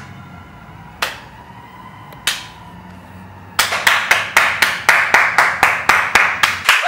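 Hand claps: two single sharp claps, then from about three and a half seconds in a fast, loud run of claps, about five a second.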